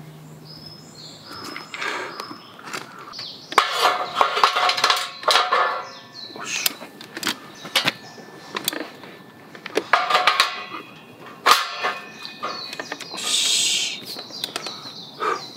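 Perforated steel camp tables being fitted around a steel fire pit: repeated metal knocks and clinks that ring briefly, with a short scrape near the end. A held music tone fades out at the start.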